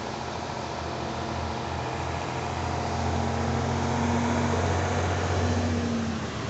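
A motor vehicle's engine running nearby, with a steady hum that swells about halfway through and eases off near the end, over the continuous rushing of a fast, flooded river.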